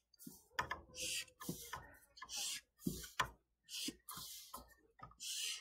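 Felt-tip marker drawn quickly across paper in short straight strokes, a scratchy hiss with each line, about two a second, with light taps as the tip comes down on the paper.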